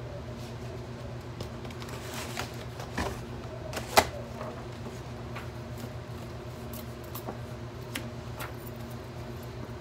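Papers and file folders being handled in a filing drawer, with scattered clicks and one sharp knock about four seconds in, over a steady low hum.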